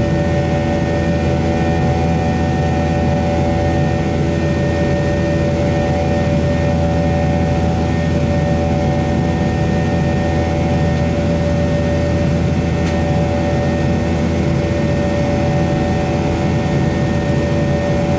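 McDonnell Douglas MD-90's rear-mounted IAE V2500 turbofans heard from inside the cabin near the tail during the climb: a steady drone with several steady buzzing tones over it.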